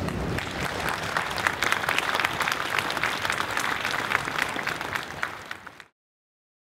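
Audience applauding, many people clapping at once; the applause thins out and then cuts off abruptly to silence about six seconds in.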